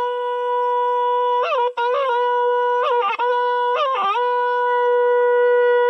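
Traditional Bastar horn trumpet made of animal horn, with a bamboo mouthpiece, blown in one long held note. Short warbling flicks of pitch break the note about a second and a half, two, three and four seconds in.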